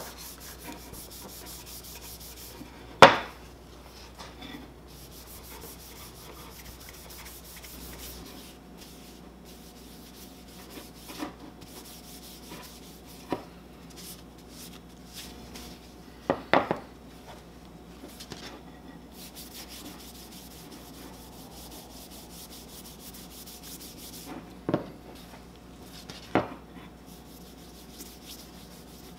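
Paper towel rubbing wood wax into a turned hickory handle, a soft steady scrubbing, broken by a handful of sharp knocks, the loudest about three seconds in.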